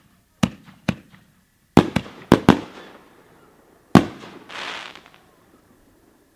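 Aerial fireworks shells booming: a series of sharp bangs, a quick cluster of four about two seconds in and a last loud one about four seconds in, followed by a short hiss.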